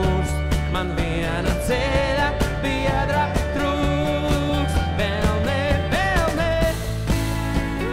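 Live band music in the middle of a song, with no lyrics sung: electric guitar, bass guitar, acoustic guitar and drums playing together.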